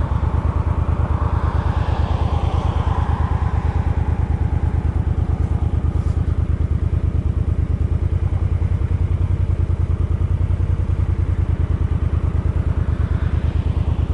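Suzuki Boulevard M50's V-twin engine running steadily, its exhaust beating in an even, rapid pulse.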